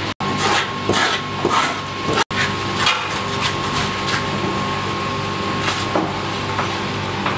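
Irregular knocks and clatter, a few a second at times, over a steady low mechanical hum with a faint steady high tone.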